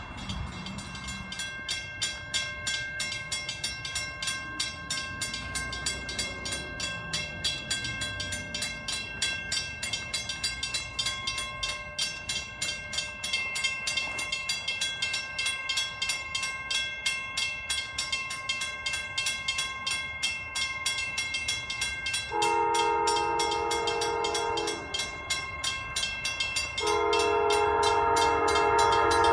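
Grade-crossing warning bell ringing steadily, a few strokes a second. Near the end an approaching Amtrak train's locomotive horn sounds two long blasts, a chord of several tones, the standard warning for a grade crossing.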